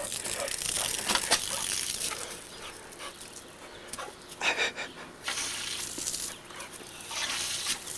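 Dog panting as it snaps and jumps at a stream of water from a garden hose, with short noisy bursts of breath and water a few times.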